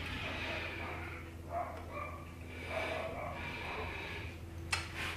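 Heavy breathing through the nose of a man bent over at work, with a faint steady hum underneath and a sharp click near the end.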